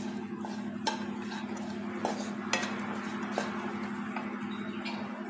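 Wooden spatula stirring and tossing vegetable strips in a nonstick wok, with short scrapes and knocks against the pan and a faint sizzle. A steady low hum runs underneath.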